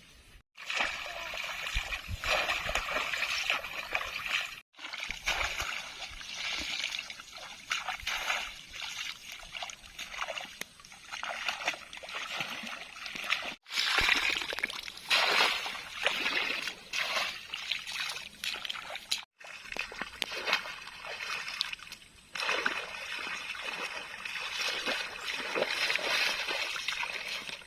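Water splashing and sloshing, as of hands working through water, in several short stretches that break off abruptly.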